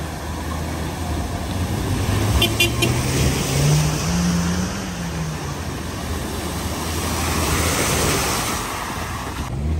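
Suzuki Jimny's engine pulling through deep floodwater, with the rush and splash of its bow wave throughout. The revs rise about two seconds in and ease off again about two seconds later.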